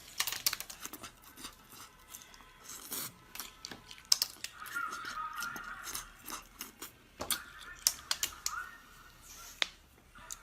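Close-up eating sounds: many short, sharp wet clicks and smacks of chewing and mouth noises, uneven and irregular.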